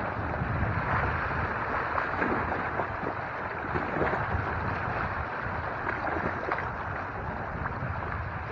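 Wind buffeting the microphone with a steady low rumble, over small sea waves lapping and splashing against the shore rocks.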